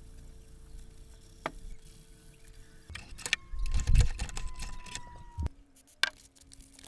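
Steel sledgehammer head being handled in a vise with a gloved hand: a few sharp metallic clicks, and a loud cluster of knocks, clinks and scraping around the middle.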